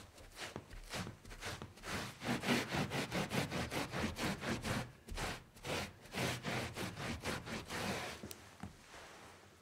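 Brisk back-and-forth wiping strokes rubbing across a surface, about three to four strokes a second, starting sparse, picking up about two seconds in and fading near the end.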